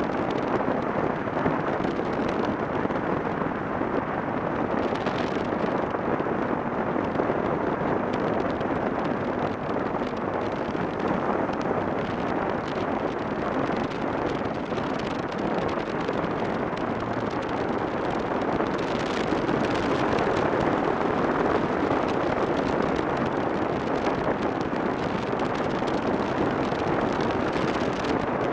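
Yamaha XTZ 750 Super Ténéré's parallel-twin engine running steadily under way, mixed with wind rush on the microphone, as the motorcycle rides through a tunnel.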